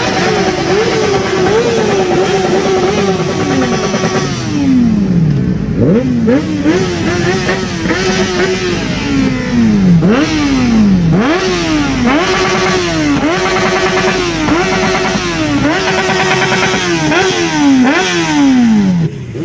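Sport motorcycle engines revved in place: one engine blipped again and again, each rev rising quickly and falling away, now and then held high for a second or two, with other engines running beneath.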